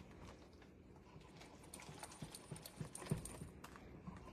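Faint, irregular clinks and taps of a whisk against the side of a stainless-steel soup pot as creamy soup is stirred, a few knocks a second, busiest in the middle.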